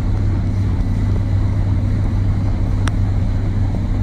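Motorboat engine running steadily, a constant low drone with no change in pitch, and a single brief click about three seconds in.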